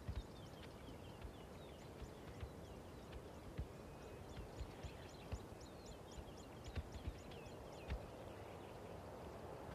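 Faint savanna ambience: a bird giving short, high, falling chirps, running into a quick series of about three a second in the middle, with scattered soft low thuds underneath.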